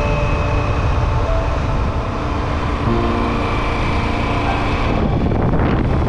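Motorcycle riding along a paved road: a steady mix of engine and road noise, with a few held tones. The sound shifts about five seconds in.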